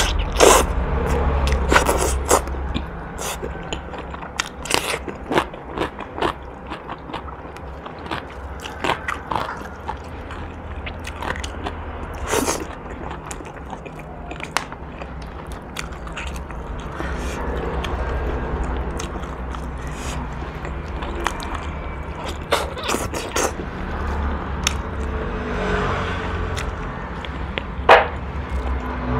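Close-miked eating of boiled pork bones: chewing, smacking and sucking meat off the bone, with many sharp wet clicks scattered throughout over a low steady hum.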